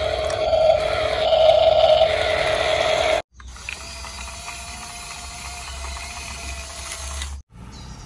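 Small electric gear motors of RC toy construction vehicles whining steadily. The first, louder whine cuts off about three seconds in; a quieter, steady motor whine follows and cuts off near the end.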